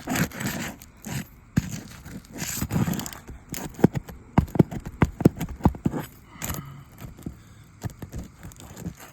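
Asphalt roof shingles being pried up and separated: scraping and tearing, then a run of sharp clicks and knocks. The shingle is brittle and tears slightly as it comes loose.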